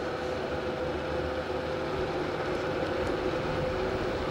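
Phantomgogo Commuter R1 electric scooter riding over cracked asphalt: a steady road rumble with a thin, steady whine from its 450-watt brushless hub motor.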